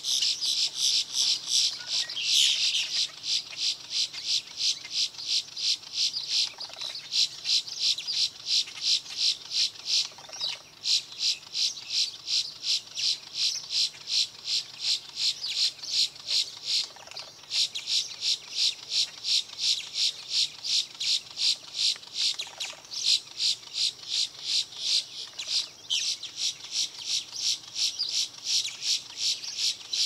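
Insects chirping in a fast, even rhythm, about three to four high-pitched chirps a second, in long runs broken by a few short pauses.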